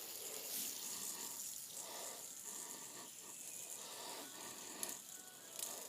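Fidget spinner whirring faintly as it spins, a steady hiss-like bearing noise, with a couple of short clicks near the end.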